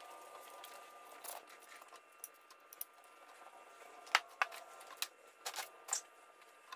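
Scattered light clicks and knocks of metal car parts being handled on a workbench: a valve cover and its bolts picked up and set down, the sharpest knock about four seconds in. A faint steady hum runs underneath.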